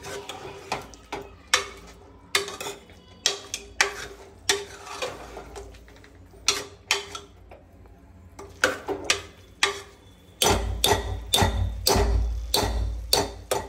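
A spoon scraping and knocking against a pot as chopped tomatoes are stirred into frying chicken curry, in irregular strokes that come faster and louder near the end over a low rumble.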